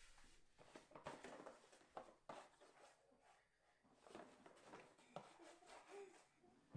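Faint handling of a cardboard toy box: soft rustling with a few light knocks. A child giggles softly near the end.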